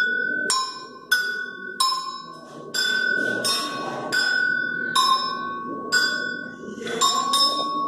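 Agogô, the Brazilian two-toned metal bell, struck over and over with a stick, sounding its high and low bells in a steady pattern at about one ringing strike every two-thirds of a second.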